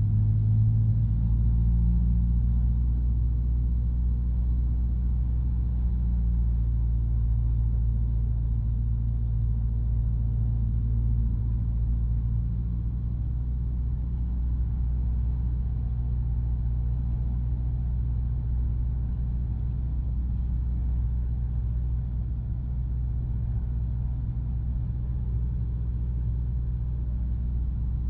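Single-engine light aircraft's piston engine and propeller droning steadily in flight, heard inside the cockpit. The level eases slightly about halfway through.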